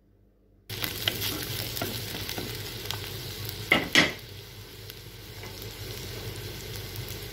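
Sliced onions sizzling as they fry in butter in a pan, stirred, with small clicks throughout. The sizzling starts suddenly just under a second in. About four seconds in come two loud sharp knocks of the stirring utensil against the pan.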